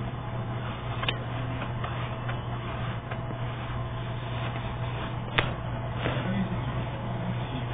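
Pages and card of a pop-up book being handled, with two sharp paper clicks, one about a second in and a louder one about five seconds in as a page is turned, over a steady low hum and hiss.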